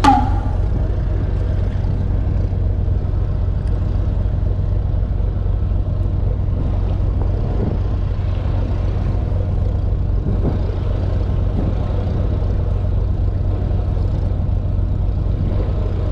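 Fishing boat's engine running steadily, a low drone with a constant hum under it.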